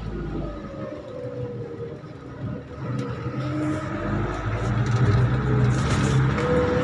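Minibus engine and road noise heard from inside the passenger cabin, a steady hum with a faint whine, getting louder about four seconds in.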